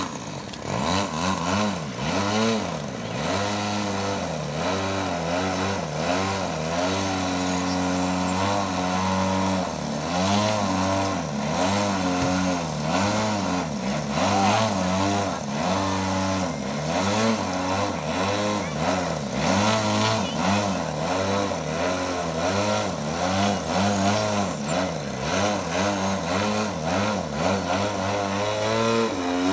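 Engine and propeller of a radio-controlled Edge 540 aerobatic model plane holding a nose-up hover. The engine speed keeps rising and falling as the throttle is worked to hold the plane in place, with a few short stretches at a steady pitch.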